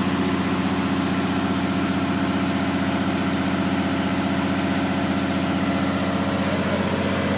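Air-cooled six-cylinder Deutz diesel of a 1977 Magirus-Deutz FM 170D11 FA fire truck running at a steady speed, driving its built-in centrifugal fire pump, which is feeding a hose at about 10 bar.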